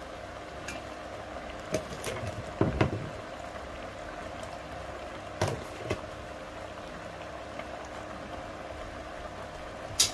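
A pot of sheep tripe bubbling steadily at the boil, while sheep's feet are dropped in. The feet give a few sharp knocks and splashes about two to three seconds in, two more near six seconds, and one near the end.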